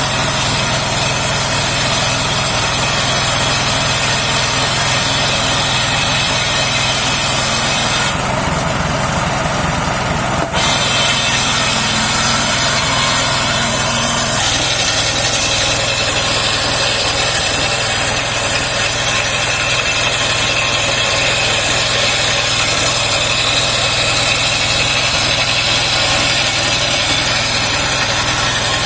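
Homemade engine-driven circular sawmill running steadily, engine and spinning saw blade together. The high whine drops out for a couple of seconds about eight seconds in, and the tone shifts again a few seconds later as the load on the saw changes.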